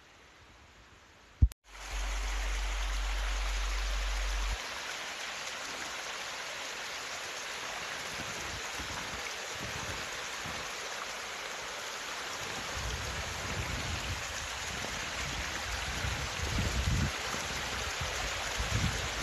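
Small creek running steadily; it starts suddenly after a click about a second and a half in. Irregular low rumbles join it in the second half.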